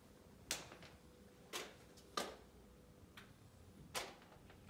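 Faint, sharp taps about once a second, from slow footsteps on a hard floor.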